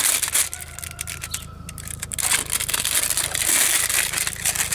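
Packaging of a router bit set being handled and torn open: continuous crinkling and tearing.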